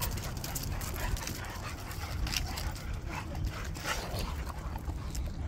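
Dogs playing, with short whines and whimpers among scattered scuffs and rustles.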